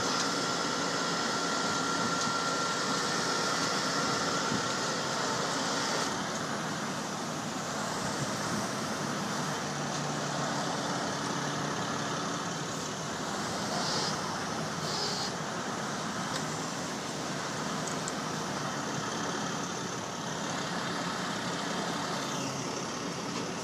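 Heavy diesel truck engines running steadily while a heavy wrecker's boom pulls a jackknifed semi-trailer back onto the road, with a thin steady whine for the first four seconds.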